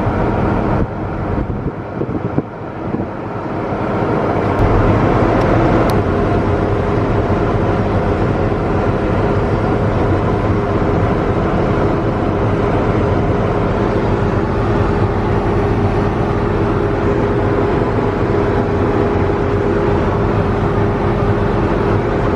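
Heavy farm machinery engine running steadily with a constant drone, dipping briefly a second or two in before coming back up to full level.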